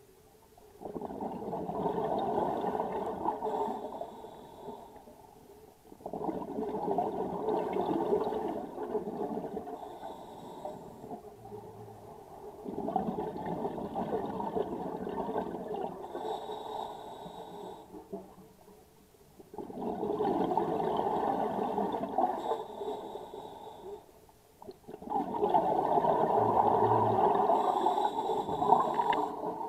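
Scuba regulator exhaust: a diver's exhaled air bubbling out in about five long bursts, one every five to six seconds, with short quiet gaps between them for each inhale.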